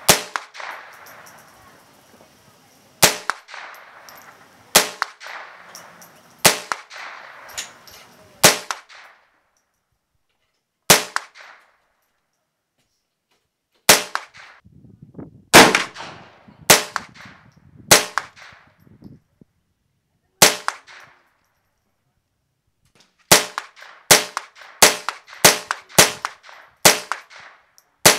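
Colt M4 .22 LR rimfire rifle firing about eighteen single shots, each a sharp crack with a short echo. They are spaced one to three seconds apart at first and come quicker, nearly two a second, near the end.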